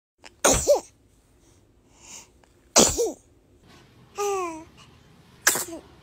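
A baby sneezing three times, each a sudden sharp burst ending in a short falling squeak of voice, with a brief falling coo between the second and third sneeze.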